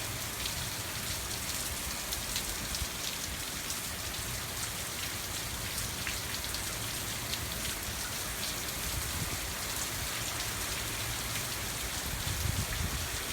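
Steady hurricane rain hissing down, with many small drips ticking close by. Near the end, wind starts to buffet the microphone with a low rumble.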